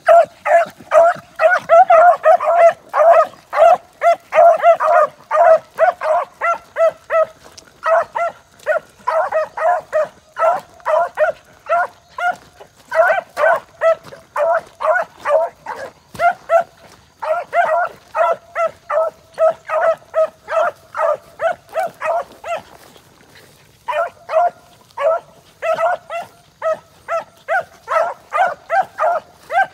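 Beagle-type hounds baying in fast runs of short, repeated barks, about three or four a second, as they work through the brush. The barking breaks off briefly several times, with a longer pause near the end.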